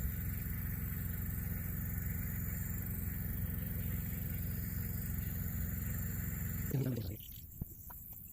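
A motor running steadily with a low rumble and a faint high whine over it, stopping abruptly about seven seconds in.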